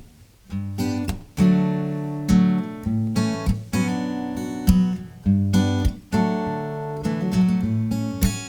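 Acoustic guitar playing a song's intro alone: strummed chords, each left to ring, starting about half a second in.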